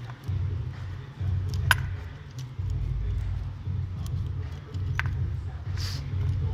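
Metal fuel-pipe fittings on a diesel engine's injectors being handled while the pipes are undone: a few sharp metallic clicks and clinks, and a short hiss near the end, over a low, uneven rumble of handling noise.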